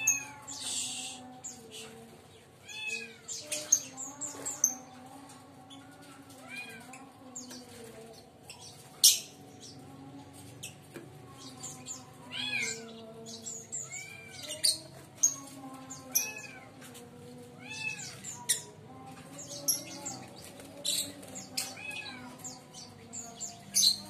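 Lovebirds calling in an aviary: sharp, shrill chirps mixed with repeated short mewing calls that rise and fall, every second or two.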